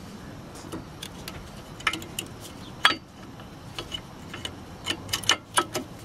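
Brake pad being pushed into the caliper bracket by hand: scattered light metal clicks and taps as the pad seats in its pad clips. There is a sharper click about three seconds in and a run of quick clicks near the end.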